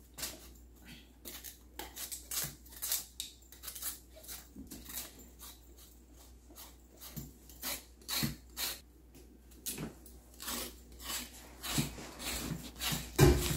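Kitchen knife cutting the peel off a raw cassava root in short, irregular strokes, about two or three a second, with a louder knock near the end.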